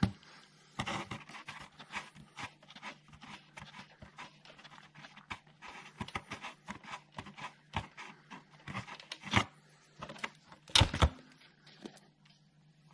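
Quarter-inch ratchet with a 13mm socket clicking in short, irregular runs as it undoes the nut on a starter motor solenoid's main positive terminal, with a few louder metal knocks in the second half.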